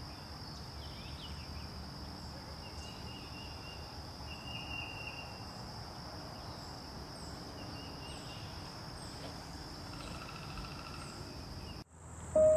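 Wetland ambience: a steady, high insect trill with short bird chirps and whistled calls over it. It cuts off abruptly near the end as music begins.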